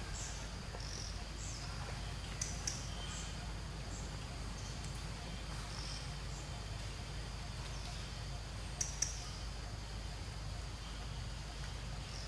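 Outdoor forest ambience: a steady low rumble with scattered short, high chirps and a few sharp clicks, a pair about two and a half seconds in and another pair about nine seconds in.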